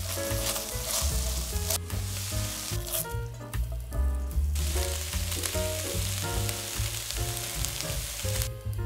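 Beef cubes sizzling as they sear in a stainless-steel frying pan, stirred and scraped with a silicone spatula. The sizzle drops away for a moment about three seconds in, then returns.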